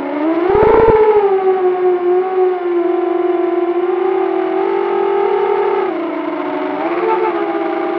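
A 6-inch quadcopter's 2207 1650kv brushless motors whining in flight, the pitch climbing on a throttle punch about half a second in with a brief rumble of wind on the onboard camera's microphone. The whine then holds fairly steady, dipping and rising again with throttle changes near the end.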